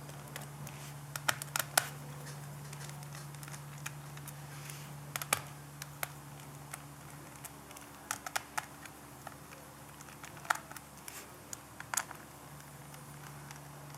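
Scattered small clicks and taps of a precision screwdriver and tiny screws against a laptop's chassis as motherboard screws are taken out, over a steady low hum.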